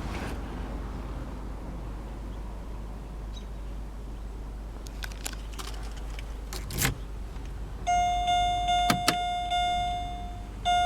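A car's electronic warning chime sounds as a steady high tone over the last few seconds, after a few clicks from the cabin, over a faint steady low hum.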